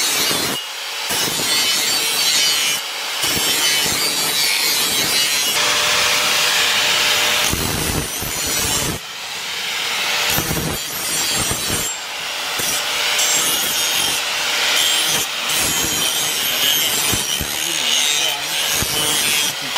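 Electric angle grinder with an abrasive disc running against a steel machete blade, a continuous grinding hiss with a high motor whine. The noise dips briefly a few times, about a second in, about three seconds in and around nine seconds in.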